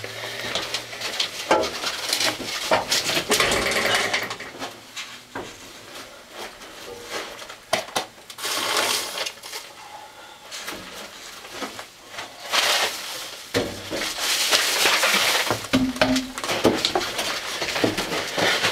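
Plastic garbage bag crinkling and rustling as it is pulled off a tractor's muffler, with irregular clicks and knocks. The longest stretches of crackling come about eight seconds in and again from about twelve to fifteen seconds.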